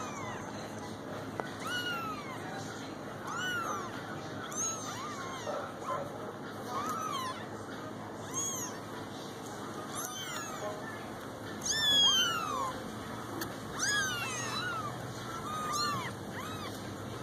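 A litter of young kittens mewing while they jostle to nurse: many short, high mews that rise and fall, one every second or two, sometimes overlapping, the loudest cluster about two-thirds of the way through.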